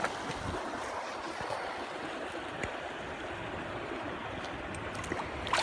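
Creek water flowing steadily, an even wash of running water, with a few faint small clicks.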